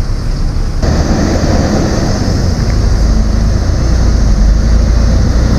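Wind buffeting the microphone with a heavy low rumble, over a steady engine hum from a bus in the terminal yard. A high hiss comes in about a second in.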